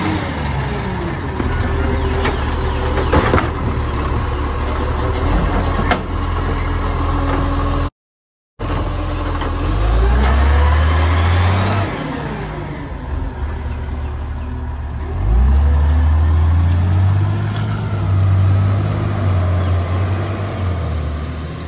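Dennis side-loader garbage truck working a bin: its diesel engine revs while the hydraulic lifting arm whines up and down in rising and falling glides, with a few metallic knocks. Near the end the engine revs up as the truck pulls away.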